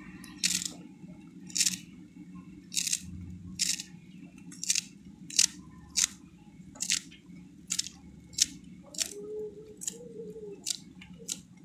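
Knife cutting through a hand-held bunch of fresh coriander, with a crisp snip at each stroke, about one to two cuts a second, over a steady low hum.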